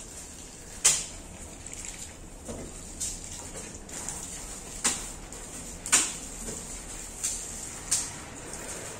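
About six sharp knocks and clatters at irregular intervals, the loudest about one second in and about six seconds in, over a steady faint hiss.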